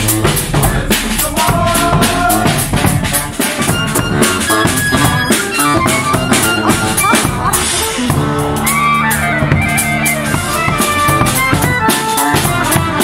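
Street brass band playing: trumpets and a large brass bass horn sounding held notes over a bass drum and other drums beating a steady rhythm.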